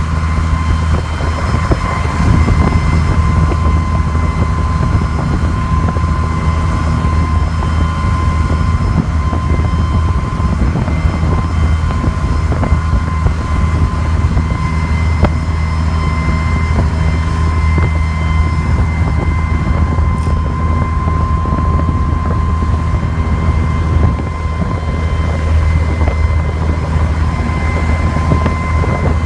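Boat engine running steadily, a constant low drone with a thin whine above it and some wind noise on the microphone.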